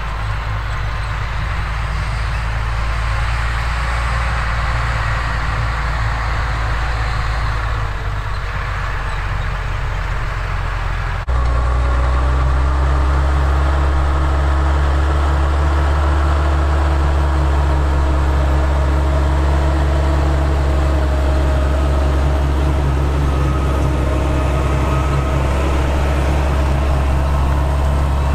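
Fendt Favorit 818 tractor's six-cylinder diesel engine running steadily under load while pulling a seed drill across the field. About eleven seconds in the sound jumps abruptly louder, with a stronger low hum, as the tractor is heard close up.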